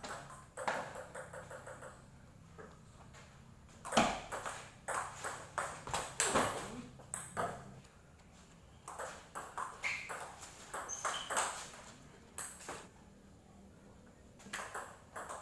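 Table tennis rallies: the celluloid-type ball clicking off the paddles and the table in quick back-and-forth exchanges, in several runs separated by short pauses between points. The sharpest click comes about four seconds in.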